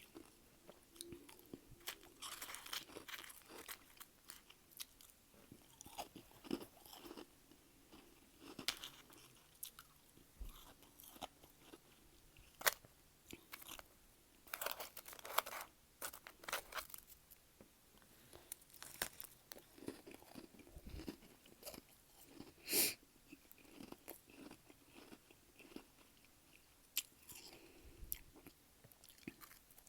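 Freezer frost being chewed up close: soft, crackly crunches coming at an irregular pace.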